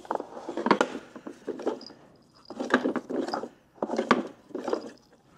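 Rummaging through a small wooden jewelry box: its wooden drawers and sides knocking while metal necklaces and chains clink, in several short clattering bursts.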